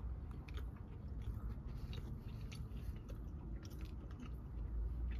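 A person chewing a bite of fried cake donut with strawberry icing and sprinkles, with small irregular mouth clicks close to the microphone. A low steady hum runs underneath.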